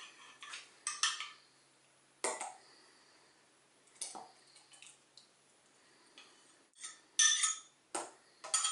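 Metal spoon scraping and clinking against a glass measuring cup as thick yogurt is scooped out and dropped into a blender cup: scattered short clinks and scrapes, the loudest a few about seven seconds in.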